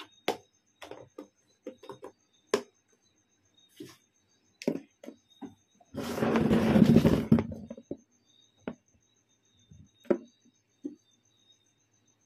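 Scattered light clicks and knocks of plastic containers and dishes being set down and handled. About six seconds in, a loud rubbing, rustling noise lasting about a second and a half as the recording phone is grabbed and moved.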